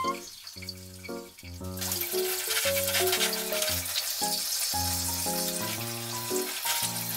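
Water spraying from a handheld shower head onto a soapy dog's coat: a steady hiss starting about two seconds in, over background music with a light melody.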